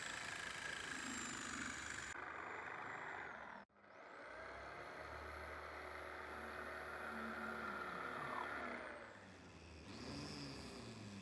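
Electric jigsaw running and cutting through a wooden board, its motor whine rising as it starts again about four seconds in and falling away about nine seconds in. Near the end an angle grinder with a sanding disc runs against a wooden block.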